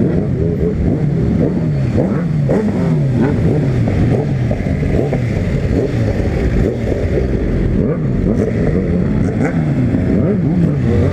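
Honda CB300 motorcycle engine being revved up and down over and over, with other motorcycle engines running alongside.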